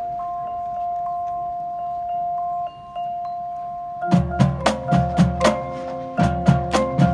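Marching band front ensemble playing. A held, ringing mallet tone with a few light struck notes over it gives way, about four seconds in, to rhythmic struck mallet chords with a low bass note under each hit.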